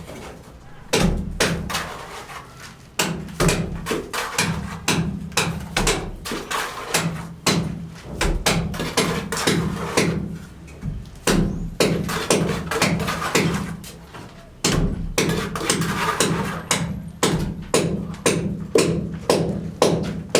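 Rapid, repeated hammer blows, often several a second, over a steady low hum that drops out briefly a few times.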